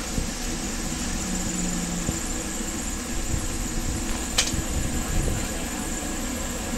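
Steady street background noise: low traffic rumble and a mechanical hum, with one sharp click about four and a half seconds in.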